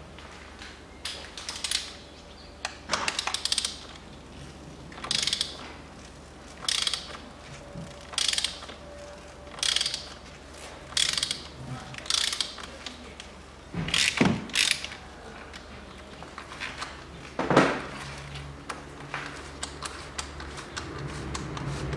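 Ratchet wrench clicking in short runs, about every one and a half seconds, as the oil filter housing cap on top of the engine is unscrewed, with a couple of louder knocks in the second half.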